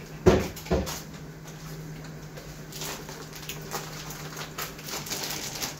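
Two sharp knocks in quick succession near the start, then light scattered clicks and rustling of kitchen handling, over a steady low hum.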